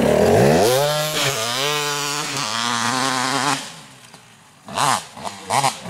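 Dirt bike engine revving up, its pitch rising and then wavering, for about three and a half seconds before it drops away; near the end two short revs rise and fall.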